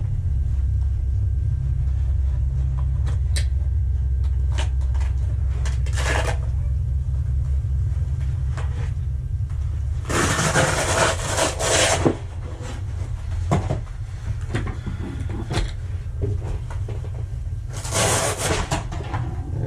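Handling of a nylon MOLLE plate-carrier vest: two loud, harsh tearing-and-rustling bursts of fabric and fastenings about ten and eighteen seconds in, with lighter rustles and clicks between. Under it a steady low rumble cuts out about twelve seconds in.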